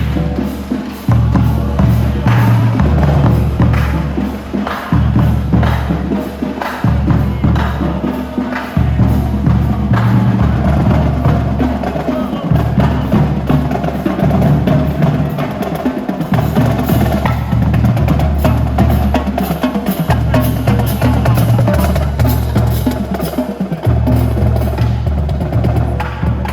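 Marching band percussion warming up: a steady stream of sharp stick clicks and drum strokes over low, sustained tones that change every second or two.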